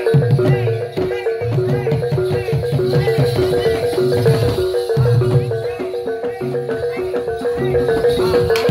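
Javanese gamelan accompaniment for a jathilan horse dance: metallophones play a fast repeating melodic pattern over kendang drum strokes. A single sharp crack comes near the end.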